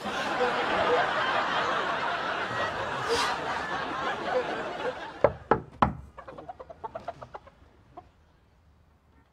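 Studio audience laughing for about five seconds. A few sharp knocks on a door follow, while the laughter dies away.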